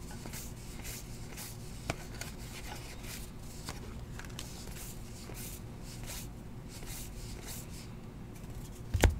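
Trading cards being slid off a stack one after another by hand: soft papery swishes, about two or three a second, with one sharp tap near the end.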